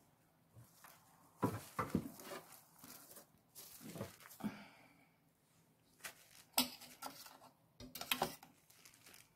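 Plastic cling film rustling and crinkling under hands as cake slices are pressed into a film-lined loaf mould. There are a few short sharp knocks in among the rustling.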